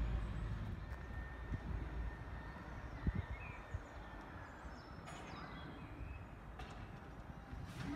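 Outdoor wind noise on the microphone: an uneven low rumble with a few soft thumps, over which a few faint bird chirps sound.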